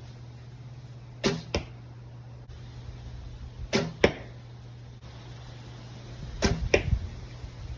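Black Hunter recurve bow shooting three arrows in quick succession. Each shot is a sharp thump of the string on release, followed about a third of a second later by the smack of the arrow striking the target. A steady low hum runs underneath.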